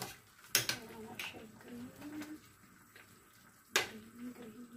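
Metal spoon clinking against a stainless steel soup pot as vegetable soup is stirred: a few sharp clinks with a short ring, the loudest near the end. A faint low hum-like tone sounds between them.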